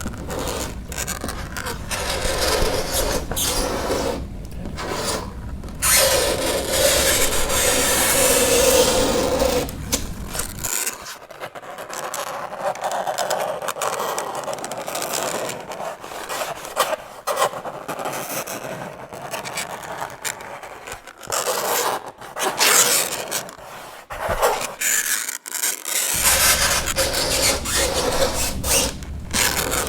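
Fingernails scraping on a chalkboard in uneven, repeated strokes, with a low rumble underneath that drops out through the middle.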